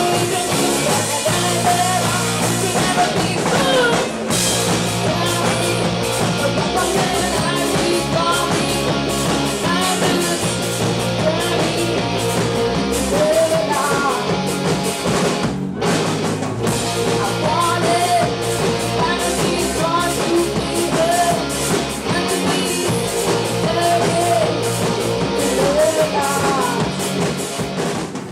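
Rock band playing live: singing over guitar, with a brief break about halfway through.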